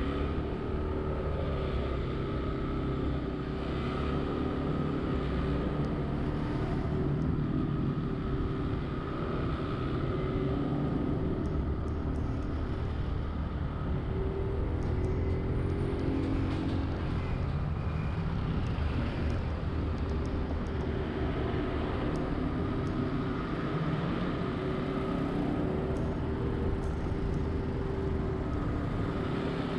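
Honda Zoomer-X scooter engine running on the road, its pitch rising and falling with speed, over steady city traffic noise.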